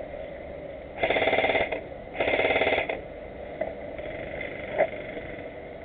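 Airsoft electric gun firing two short full-auto bursts of rapid shots, each under a second long, about a second apart.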